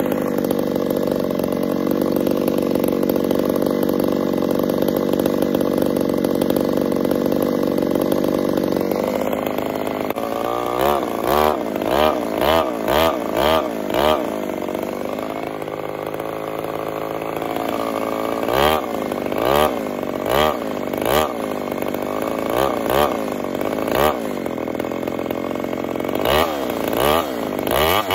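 Two-stroke chainsaw cutting through a log, running steadily at full throttle for about nine seconds, then revving up and dropping back over and over as it works the cut, and falling to idle at the end. The chain is sharpened unevenly, sharper on one side, so it pulls to one side in the cut.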